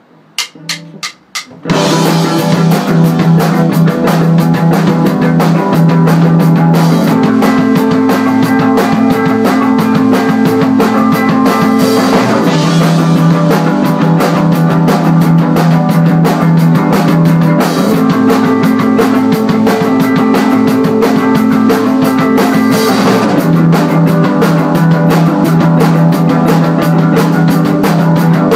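Four sharp clicks count in, then a rock band comes in together on guitar and drum kit, playing a steady song whose low chords change about every five or six seconds.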